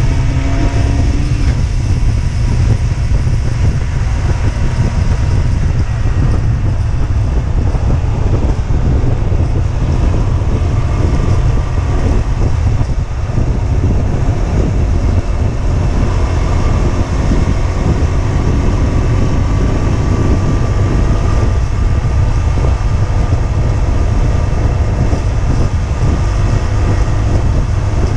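Husqvarna Svartpilen 125's single-cylinder four-stroke engine running while the bike rides at road speed, with heavy wind rumble on the microphone. The engine pitch climbs in the first second, then rises slowly again around the middle.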